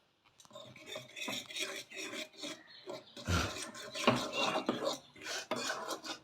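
A spatula scraping and stirring coarse wheat flour in ghee in a pan, in irregular strokes with a couple of knocks against the pan about three and four seconds in: the flour being roasted.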